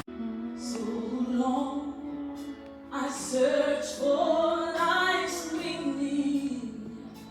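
Music: a woman singing a slow melody with long held notes, over a quiet accompaniment.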